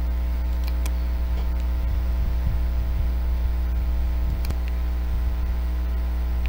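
Steady electrical mains hum on the microphone line, a low buzz with many evenly spaced overtones, with a few faint clicks about a second in and again near four and a half seconds.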